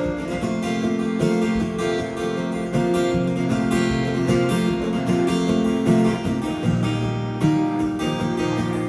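Dreadnought acoustic guitar strummed, ringing chords in a steady rhythm.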